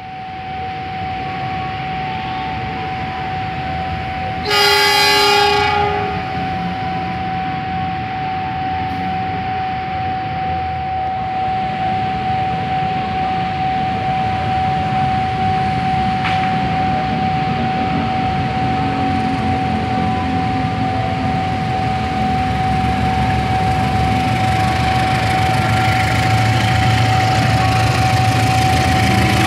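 A diesel-electric locomotive sounds one short horn blast about four and a half seconds in as the train departs. Its engine rumble then grows louder as the locomotive pulls the train towards and past the listener. A steady high-pitched tone runs underneath throughout.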